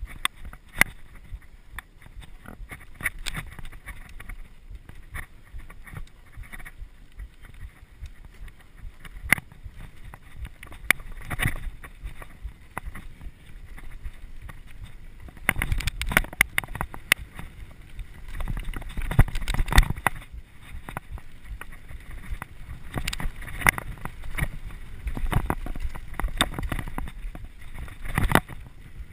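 Mountain bike riding fast down a dirt forest singletrack: tyres rumbling over the ground with many quick rattles and clacks from the bike. It gets rougher and louder about halfway through.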